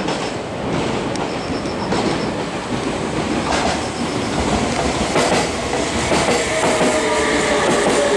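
An electric train pulling into the neighbouring platform track: its wheels clack over rail joints, and from about two-thirds of the way in its motor whine slowly falls in pitch as it brakes. A row of short high beeps sounds in the first two seconds.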